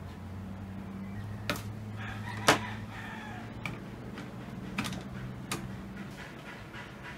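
Clicks and knocks of a phone being fitted and adjusted in a clamp holder on a desk, the loudest about two and a half seconds in, over a steady low hum.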